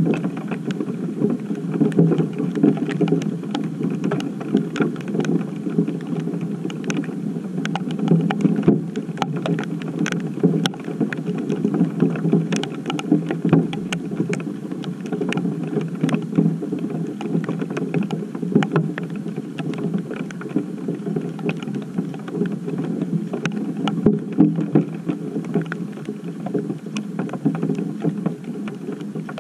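Rain and hail striking a GoPro camera and the deck around it: a dense, irregular patter of taps over a steady hiss of falling water.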